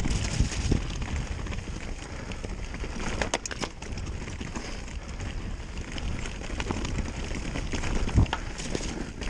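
Specialized Turbo Levo electric mountain bike ridden with its motor off along a dry dirt trail covered in leaves: steady tyre noise on dirt and leaves with frequent clicks and rattles from the bike over bumps, a cluster of sharp clicks about three and a half seconds in and a hard knock about eight seconds in.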